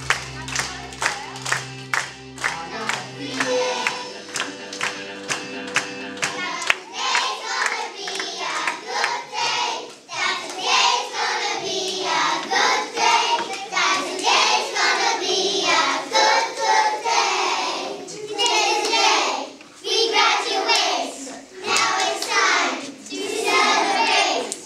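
Young children singing together to a backing track. For the first several seconds there is steady clapping in time over the music, and the children's voices come in about seven seconds in.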